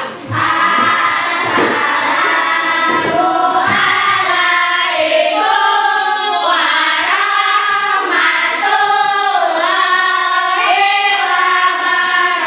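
A class of children singing a song together in unison, loud and continuous, with long held notes.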